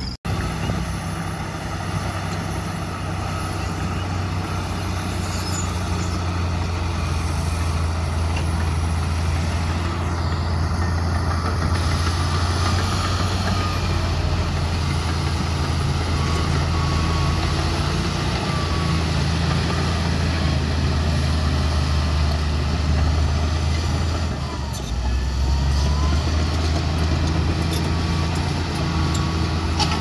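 LiuGong B160C crawler bulldozer's diesel engine running steadily under load as it pushes dirt with its blade, dipping briefly about five seconds before the end and then picking up again.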